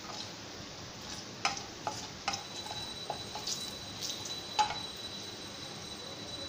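Mustard oil sizzling in an aluminium kadai with dried red chillies and nigella seeds for a tempering, while a wooden spatula stirs and knocks against the pan about half a dozen times. The sharpest knock comes a little before the end.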